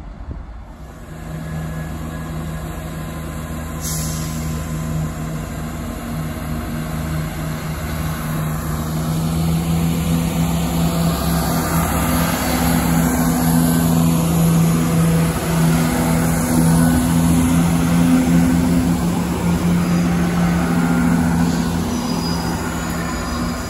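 Chiltern Railways Class 168 diesel multiple unit pulling away and passing close by, its underfloor diesel engines running with a steady low drone that grows louder as the train draws level. A single sharp click about four seconds in.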